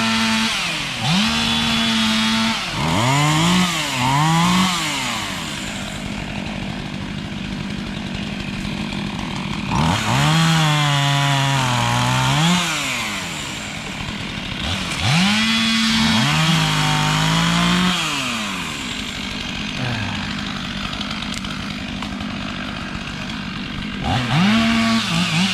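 Two-stroke chainsaw cutting ash trees, repeatedly revving up to full throttle and dropping back: high-revving bursts in the first few seconds, around ten seconds in, around fifteen to eighteen seconds, and again near the end, with a lower steady running in between.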